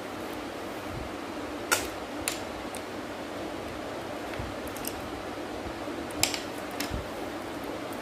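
Pencil on drawing paper: a few sharp taps in two pairs, about two seconds in and again about six seconds in, over a steady low hum.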